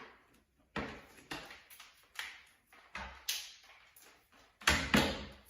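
A series of sharp knocks and clatters of objects being handled and set down, about eight in all, with the loudest two close together near the end.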